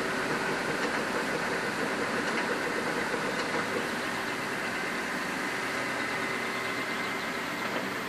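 Engine of a bitumen sprayer truck running steadily as it sprays hot binder onto the road, a constant hum with a broad hiss that fades slightly as the truck moves away.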